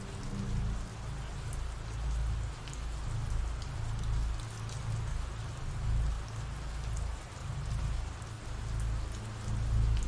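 Rain sound effect: steady rain hiss with scattered drop ticks, over a low rumble that swells and fades every second or two.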